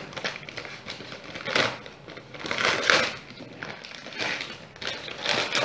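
A white butcher's bag wrapping meat crinkling and rustling as it is untied and pulled open by hand, in several separate bursts.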